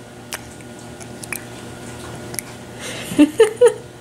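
A few faint clicks, then laughter near the end: three quick, loud bursts close to the microphone.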